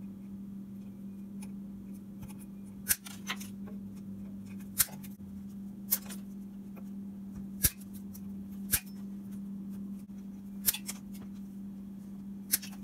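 Side cutters snipping off the tails of nylon zip ties: a string of sharp single snips, the first about three seconds in and then one every second or two, over a steady low hum.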